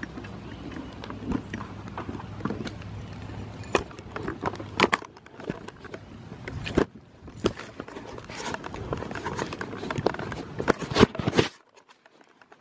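Handling noise from a rain-wet camera as it is moved about: irregular knocks, taps and rubbing on the body and microphone, with a low steady hum for the first few seconds. The sound cuts off sharply near the end as the camera is covered.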